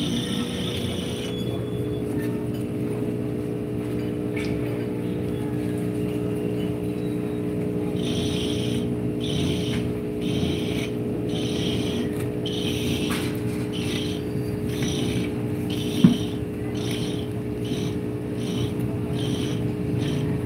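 Steady machine hum. From about eight seconds in, a hissing scrape repeats a little under twice a second, and there is one sharp knock a little after the middle.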